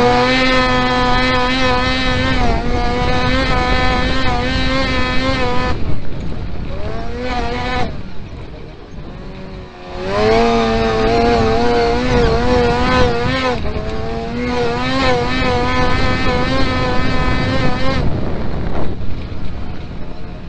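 Onboard sound of a kart-cross buggy's engine running at high revs on a dirt track. It sweeps up at the start and holds high, eases off and falls low for a couple of seconds, then climbs hard again, with brief lifts between stretches of full throttle.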